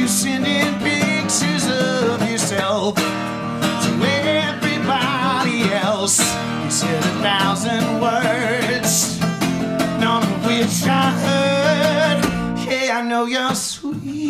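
A man singing with vibrato while playing an acoustic guitar, a live solo take, with a brief break near the end.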